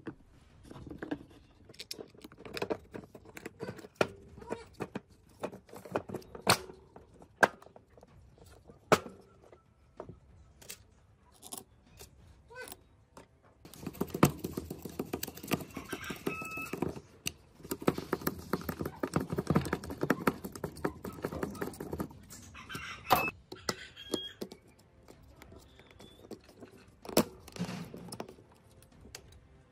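Plastic drill housing and metal field coil knocked and clicked together as the coil is pushed into place, then a screwdriver turning the screws that hold the field coil, a dense run of scraping clicks for several seconds in the middle, followed by more scattered knocks.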